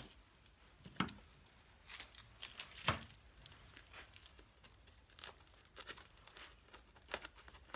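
Conifer sprigs rustling and crackling as they are handled and pushed into a styrofoam base, in a few short, scattered bursts, the sharpest about one and three seconds in.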